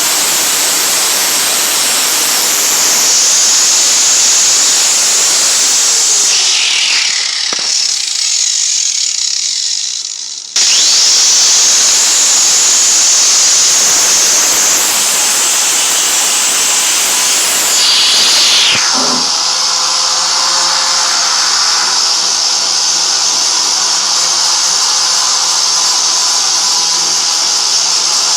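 Electric grinder running against the rusty sheet steel of a truck bed, with a high steady whine. It winds down with a falling pitch about 7 s in, then restarts about 10 s in with a rising whine. Near 19 s the pitch drops sharply again while the grinding noise carries on.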